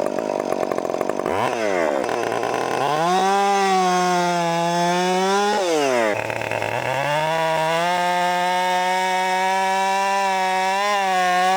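Two-stroke chainsaw engine being revved: a few quick throttle blips, then held at high revs for a couple of seconds, dropping back, and held high again for several seconds before more blips near the end.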